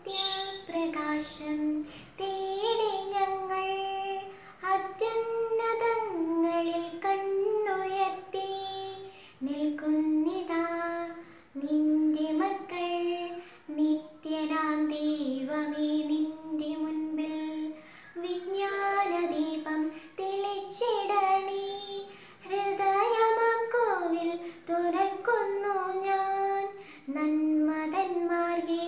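A girl singing a prayer song solo and unaccompanied, in long held melodic phrases with short breath pauses between them.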